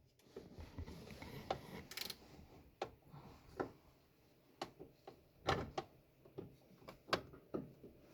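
Hand tools and metal parts being worked by hand: scattered light clicks and knocks at irregular intervals, the sharpest about five and a half and seven seconds in.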